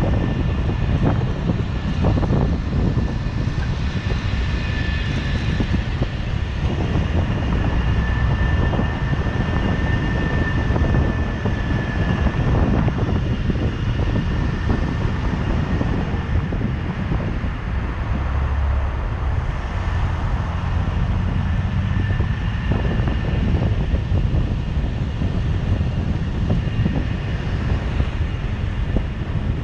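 A car driving along city streets: a steady low rumble of road and engine noise with wind on the microphone, and a faint steady high whine.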